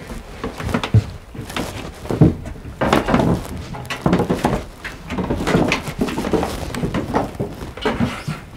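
Footsteps climbing a narrow old wooden staircase, the treads thudding and creaking irregularly under the climbers' weight.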